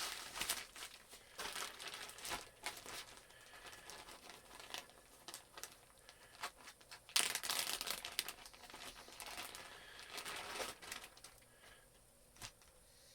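Packaging crinkling and tearing as a mailed package is opened by hand, in irregular spells, loudest about seven seconds in and dying away near the end with a single click.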